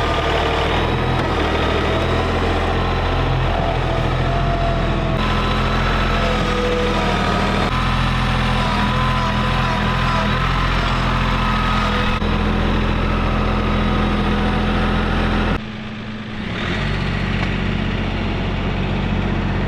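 Tractor engine running steadily. It drops suddenly quieter about sixteen seconds in, then comes back up a second later.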